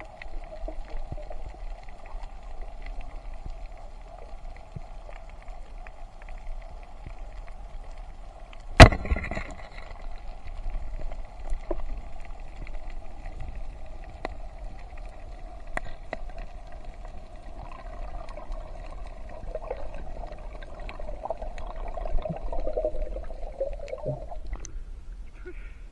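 Underwater ambience heard through a submerged camera: a steady muffled hiss with scattered small clicks and knocks. One loud, sharp crack about nine seconds in.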